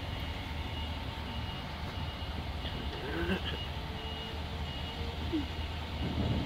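A heavy vehicle's reversing alarm beeping, short high beeps about once a second, over a steady low engine rumble.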